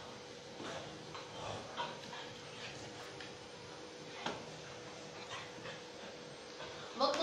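A dog panting in short breaths, with soft whimpers, as it moves about.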